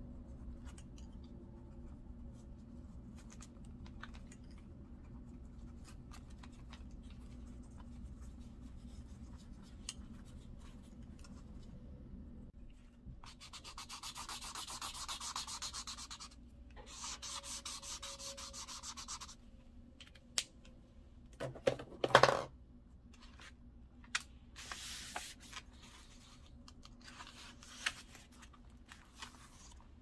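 Felt-tip nib scribbling on paper: two spells of quick back-and-forth colouring strokes about halfway through, and a shorter spell later. A few sharp knocks a little after the middle are the loudest sound, and small taps and ticks are scattered over a faint low hum.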